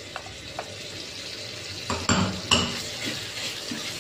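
Minced garlic sizzling in hot oil in a frying pan while a spatula scrapes a paste out of a small ceramic bowl, with light clicks and then a few louder clinks of spatula against bowl and pan about two seconds in.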